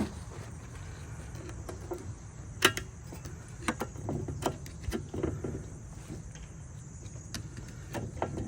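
Scattered light clicks and knocks of metal parts being handled while a wheel hub is taken apart, over a steady low hum.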